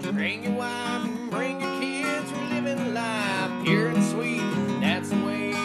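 Background music: a song carried by strummed acoustic guitar.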